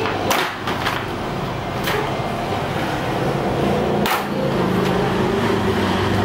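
Sharp cracks as a scored acrylic sheet is bent and snapped by hand along the cut line: three in the first two seconds, and the loudest about four seconds in. A steady background hum runs underneath.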